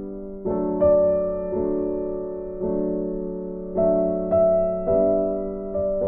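Background piano music: a slow, gentle piece of chords struck about once a second, each left to ring and fade.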